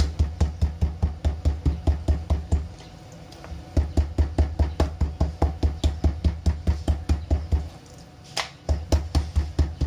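A cleaver chopping rapidly into a raw pork chop on a cutting board, about five chops a second, each with a dull thud from the board. The chop is being tenderized and scored so it won't curl. The chopping breaks off twice for about a second, and there is one sharp knock just after the second break.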